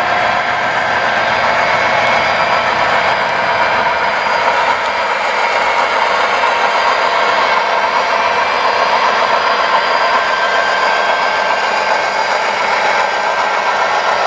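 HO scale model Union Pacific diesel locomotive pulling a double-stack train, with a steady diesel engine sound from its onboard sound system as it runs along the track.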